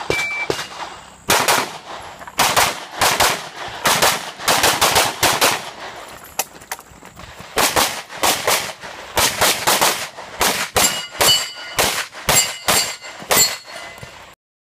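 Open-class USPSA race pistol fired in fast pairs and strings, starting about a second after a short electronic shot-timer beep. Over the last few seconds steel targets ring after several of the hits.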